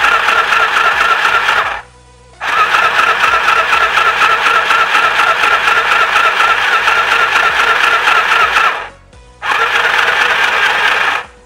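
Mini portable sewing machine (SM-202A) running under its foot pedal, its small electric motor whining steadily as the needle stitches fast. It stops twice for about half a second, near 2 s and 9 s in, and stops for good near the end.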